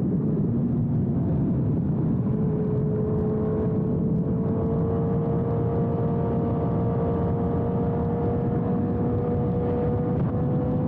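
Suzuki GSX-R1000R inline-four through a Yoshimura exhaust, running at a steady road speed under heavy wind rush. About two seconds in, a clear engine note comes through and climbs slowly as the bike gently gains speed.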